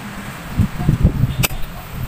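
Hands working in a car's engine bay: a few dull low bumps, then one sharp click about one and a half seconds in.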